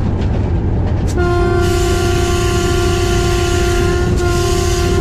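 Diesel locomotive's horn heard from inside the cab. It starts about a second in, is held, breaks off briefly near four seconds and then sounds again, over the steady rumble of the engine and wheels.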